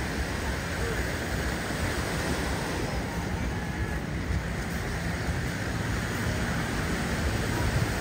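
Steady beach ambience: surf washing on the shore, with wind buffeting the microphone in a low, gusty rumble.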